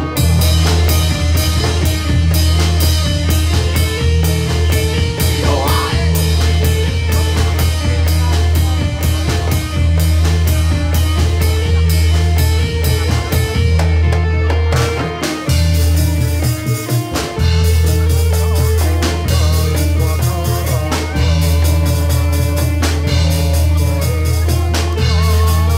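Live dance music from a drum kit and kendang with pitched melody instruments, playing a fast, steady beat over heavy bass, with a short break in the beat about two-thirds through.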